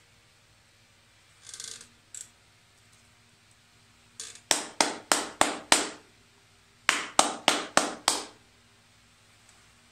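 Hand claps in a rhythm: a run of about six claps, a short pause, then about five more, roughly three claps a second. This is one person's own clap part, played along to a 100 bpm click track that is heard only in his headphones.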